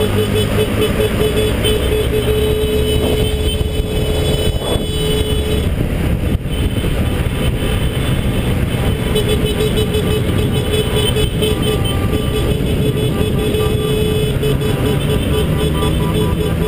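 Motorcycle riding in slow, dense city traffic: engine and road noise with wind on the helmet-mounted microphone. A held, slightly warbling horn tone sounds for the first few seconds and again for several seconds in the second half.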